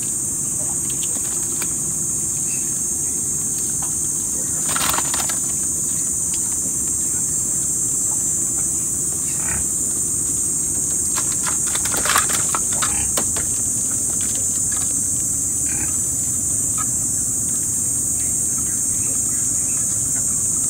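Steady, high-pitched drone of insects, over a low, even rumble. A few short clicks and knocks sound about five seconds in and again around twelve seconds in.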